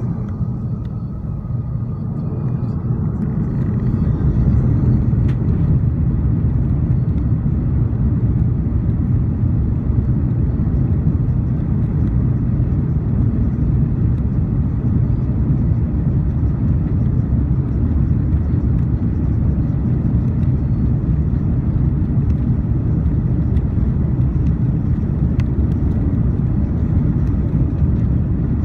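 Cabin noise of an Airbus A340 during its takeoff roll. The jet engines build up to takeoff thrust over the first few seconds, then hold a loud, steady, deep rumble as the aircraft runs down the runway.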